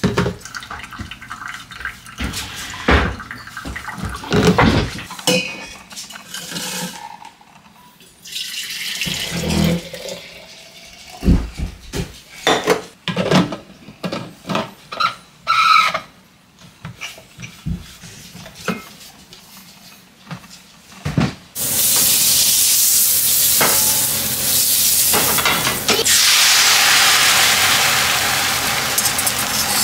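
Kitchen clatter of short knocks and clinks as cups and a thermos coffee pot are handled. About two-thirds of the way in, beaten egg poured into a hot frying pan starts a loud, steady sizzle.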